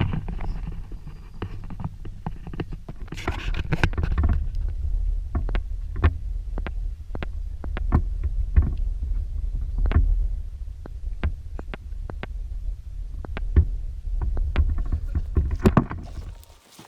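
Wind rumbling on the microphone, with irregular sharp taps about once or twice a second; both cut off abruptly just before the end.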